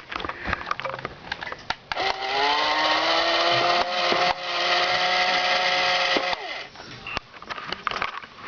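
A firework burning with a loud hiss and a whistling tone that rises briefly, then holds steady for about four seconds before cutting off. Scattered crackles and pops come before it.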